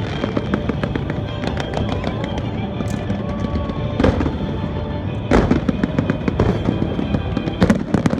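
Aerial fireworks going off: a dense stream of crackling and popping, with louder bangs about four seconds in, just after five seconds and near the end, over music played with the display.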